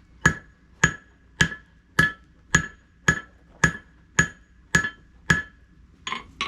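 Blacksmith's hammer striking red-hot iron on an anvil in a steady rhythm of about two blows a second, each with a bright metallic ring. Ten even blows are followed by two lighter taps near the end.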